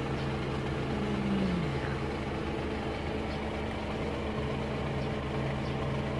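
A motor vehicle's engine idling steadily, a low, even hum, with a short tone sliding downward about a second in.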